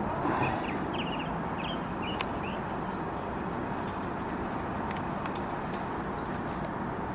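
Small birds chirping, many short quick calls scattered through, over a steady rush of outdoor background noise.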